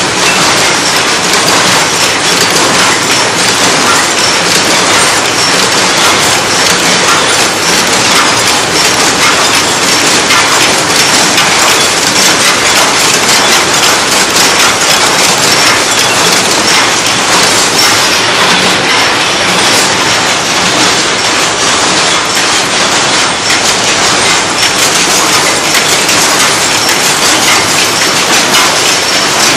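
Paper cup forming machine running: a loud, steady mechanical clatter made of many rapid clicks and knocks from its moving parts.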